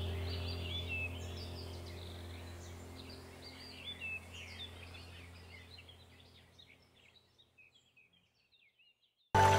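Background music with a sustained drone and layered birdsong chirps, fading out gradually to silence about two-thirds of the way through; a new music track starts abruptly near the end.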